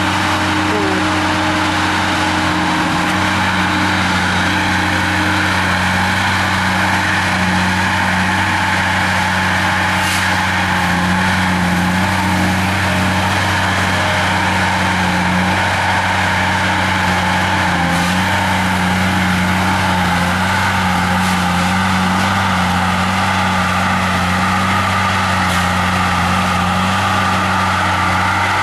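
Heavy machine's engine running steadily at a constant pitch, with a couple of brief ticks.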